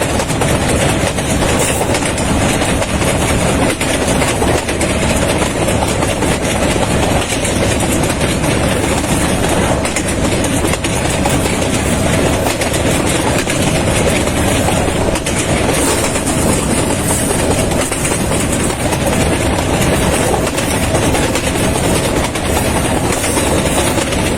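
A passenger train running along the track, heard from inside the carriage: a steady, loud rumble and rattle of wheels on rails.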